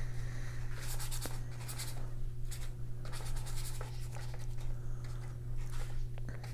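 Paintbrush loaded with gouache scrubbing across sketchbook paper in a series of short strokes, over a steady low hum.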